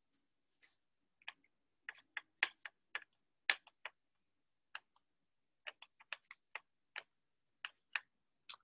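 Calculator keys being pressed: about twenty short, sharp clicks at an uneven pace, some in quick runs, as a sum is keyed in.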